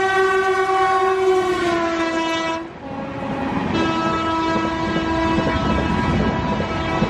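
Horn of a WAP-7 electric locomotive sounding as it passes at speed, its pitch dropping as it goes by. It breaks off about two and a half seconds in and sounds again about a second later, while the coaches rumble and clatter past.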